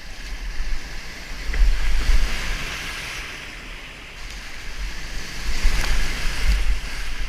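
Whitewater river rushing, with wind buffeting the microphone; the water noise swells louder twice.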